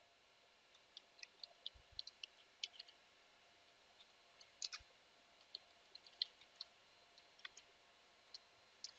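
Faint, irregular clicks of keys being typed on a computer keyboard, a few to several a second with short pauses, over near silence.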